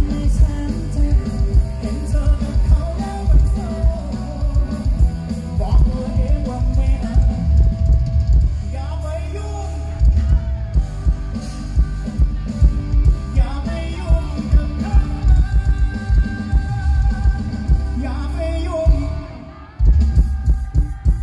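Live band playing a rock song with drums and a male lead singer, recorded from the audience. The music drops away briefly near the end, then the full band comes back in.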